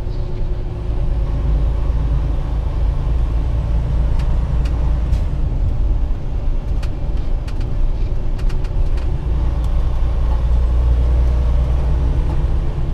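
Semi-truck engine and tyre rumble heard from inside the cab while driving at highway speed: a steady deep drone, with a few faint clicks scattered through the middle.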